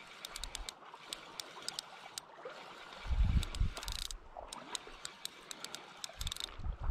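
Quiet water trickling and lapping, with scattered sharp ticks and a brief low rumble about three seconds in.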